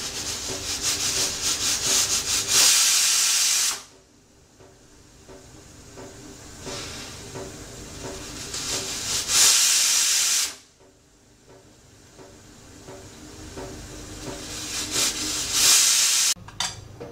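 Pressure cooker whistling three times as its weighted valve lets off steam. Each time, a rapid sputtering chatter builds to a loud hiss and then stops abruptly. The cooker is at full pressure, venting to count off the cooking time.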